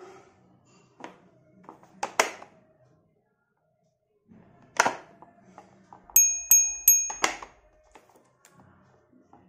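Hard plastic clicks and knocks as a toy dump truck is handled and its tipper bed is lowered. About six seconds in, a bell-like ring is struck about three times in quick succession, lasting about a second; this ring is the loudest sound.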